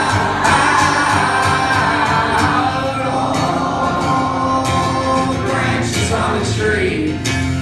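Live music: guitar playing with singing, between lines of a song.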